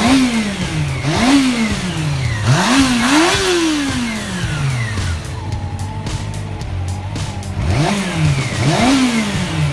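Honda CB400SF inline-four motorcycle engine being blipped through a series of quick throttle revs, each rising sharply and falling back to idle: a double rev in the first few seconds, a stretch of idle, then two more revs near the end. The engine picks up revs quickly with freshly cleaned carburettors.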